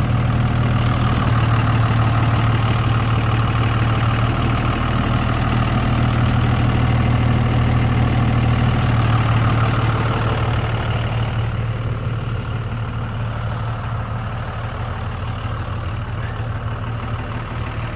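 Diesel engine idling steadily, growing somewhat quieter from about ten seconds in.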